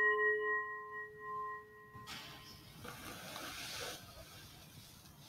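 A single struck bell fading away over the first two seconds, rung at the elevation of the chalice after the consecration. A soft rustling follows for about two seconds.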